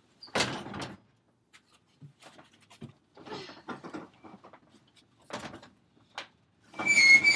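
Something being pulled open by hand: a loud scrape about half a second in, then scattered knocks and rubbing, and a loud, high, steady squeak near the end.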